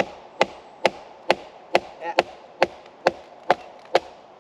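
Steady, evenly spaced knocks, a bit over two a second, as a wooden wedge is hammered with a hatchet into a soft, punky log to split it.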